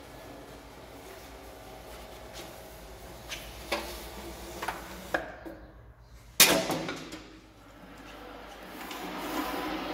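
Motor-driven seaming head of a downspout pipe seaming machine running with a steady hum and a few knocks. It goes briefly quieter, then a loud metallic clang rings out and dies away, and the running noise builds again near the end.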